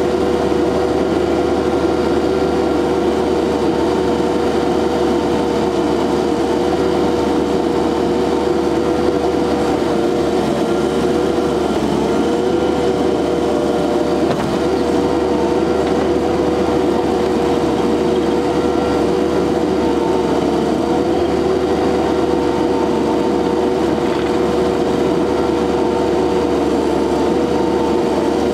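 Engine of an SCL 1000 compact loader running steadily at a constant speed as the machine drives over dirt, with a steady, even whine over the engine noise.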